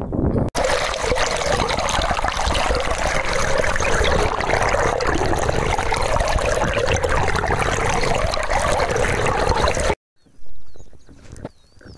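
Water rushing and splashing along the side of a moving boat, close to the microphone, loud and steady. It cuts off abruptly near the end, leaving only faint, quieter sounds.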